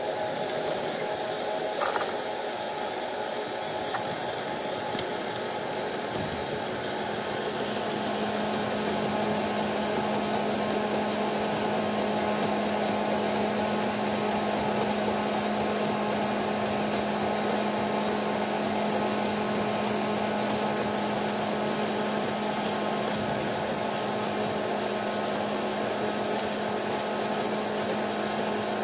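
Tevo Black Widow 3D printer running while it prints a first layer: a steady whir of its cooling fans and the stepper motors moving the print head, with a low steady hum coming in about eight seconds in.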